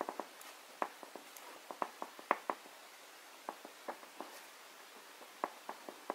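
Red oil pastel stick stroked and dabbed on paper: short, quiet strokes at uneven intervals.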